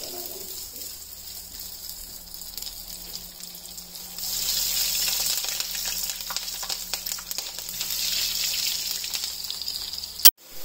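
Breaded fish cakes sizzling and crackling in hot oil in a frying pan, growing louder about four seconds in. A single sharp click near the end.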